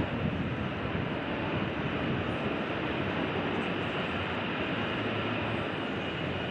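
Jet engine of an F-35B Lightning II fighter running with a steady, even rushing noise.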